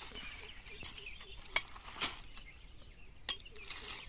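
A sickle chopping a thin wooden stick: three sharp cracks, two close together near the middle and one near the end.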